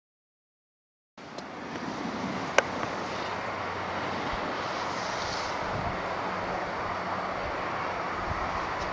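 Silence for about a second, then a steady rushing outdoor noise with no clear pitch, broken once by a sharp click about a second and a half after it begins.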